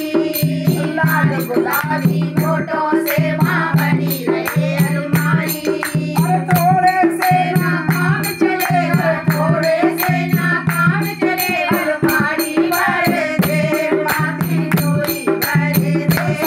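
A woman singing a devotional song (bhajan), her voice sliding between held notes, kept in time by a steady rhythm of hand claps.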